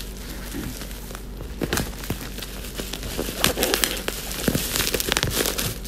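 Black plastic mailer bag crinkling and rustling irregularly as hands pull it open and reach inside.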